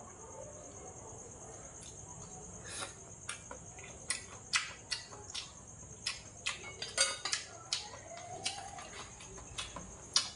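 A person eating: irregular wet chewing and lip-smacking clicks, with a spoon and chopsticks touching the bowls, starting about three seconds in. Behind it, a steady high chirring of crickets.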